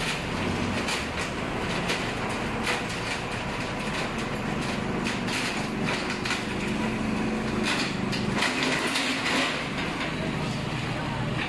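Corrugated metal slats of a manual roll-up shutter rattling and clanking continuously as the curtain is pulled down off its roll, with many sharp clacks throughout.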